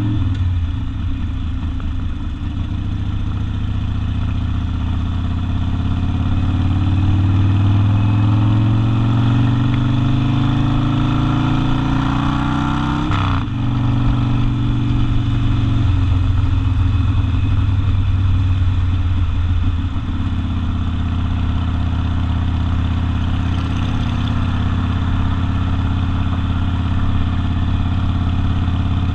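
Harley-Davidson Sportster V-twin with open exhaust, ridden. The engine note climbs steadily for about ten seconds as it accelerates, drops suddenly about thirteen seconds in, then runs fairly steady.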